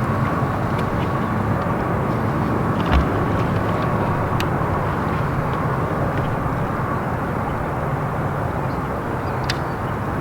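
Steady motor-and-wind noise of a bass boat running under way, with a short low thump about three seconds in and a few faint ticks.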